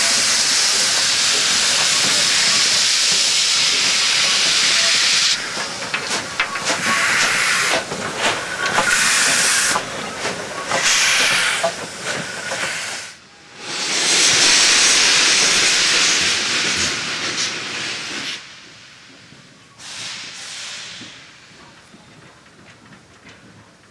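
AD60-class Beyer-Garratt steam locomotive 6029 venting steam from its cylinder drain cocks: a loud steady hiss that breaks into uneven bursts after about five seconds, then swells into a long hiss again. Past the middle it drops away to a faint hiss with one short burst.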